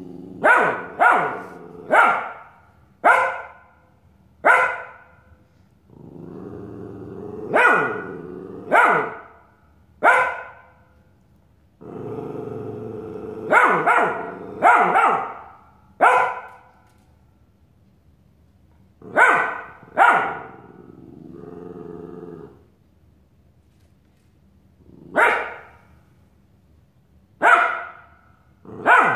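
Australian Shepherd puppy barking at its own reflection in a mirror: about fifteen sharp single barks at irregular intervals, with low growls held for a second or two between some of them.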